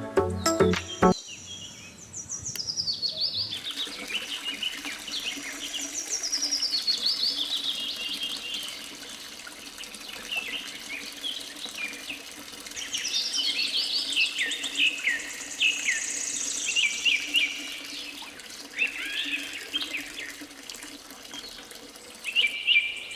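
Birds chirping and singing: many quick, high calls, some sweeping downward, over a faint steady background hiss.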